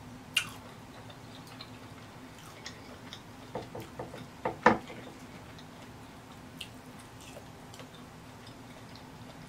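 Close-miked eating sounds: a sharp mouth click about half a second in and soft chewing, then a few light knocks ending in a sharper click about halfway through as a lemon half is taken from the plate, with faint ticks afterwards as it is squeezed over the shrimp. A low steady hum runs underneath.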